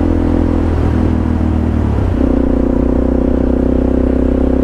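Supermoto motorcycle engine running under way, its note stepping up in pitch about two seconds in as the throttle opens.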